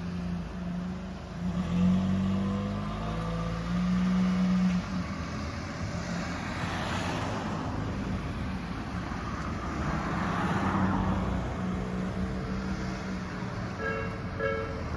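Motor vehicles running and passing at a railway level crossing. Near the end the crossing's warning bell starts its steady, repeated ringing.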